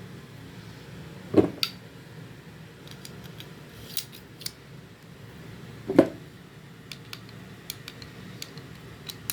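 Metallic clicks and clacks from handling a freshly reassembled Ruger Mark IV pistol: two louder clacks about a second and a half in and about six seconds in, with lighter clicks between them.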